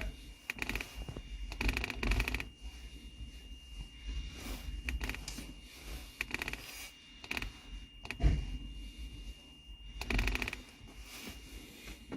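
Irregular bursts of clicking and rattling, like parts or tools being handled, over a faint steady high whine, with a single sharp thud about eight seconds in.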